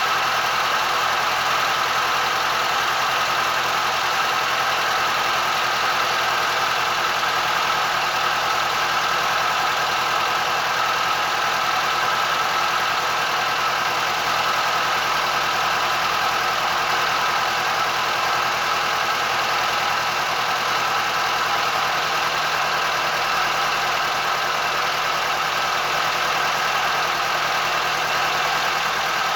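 A boat's engine running steadily under way, a constant engine hum with no change in speed.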